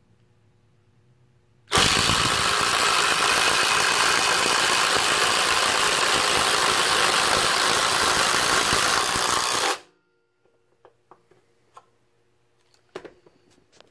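Bauer 20V compact impact driver hammering steadily for about eight seconds as it drives a fastener, then stopping abruptly.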